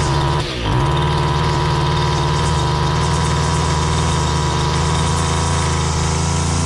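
John Deere C1200 string trimmer's small two-stroke engine idling steadily after a pull start, running again after its no-start, with a brief dip in its sound about half a second in.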